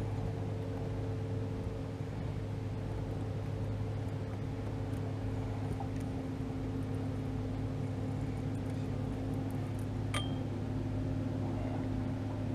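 Boat motor running steadily, a low even hum. A single sharp metallic clink about ten seconds in.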